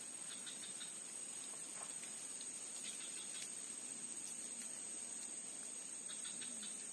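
A steady, high-pitched chorus of insects, such as crickets, drones without a break, with a few faint ticks mixed in.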